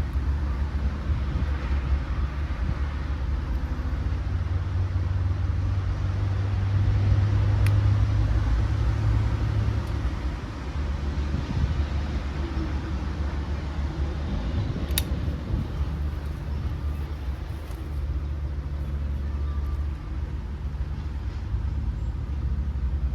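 A low, steady motor drone, swelling a little for several seconds in the middle.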